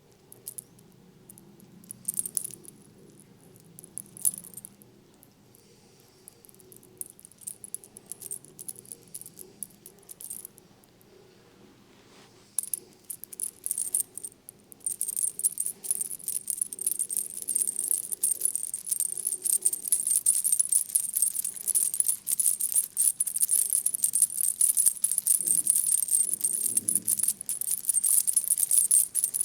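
Fast, dense crackling rattle of hands rubbing and working vigorously over the head and hair during a massage. There are a few short bursts in the first half, then a steady run from about halfway in.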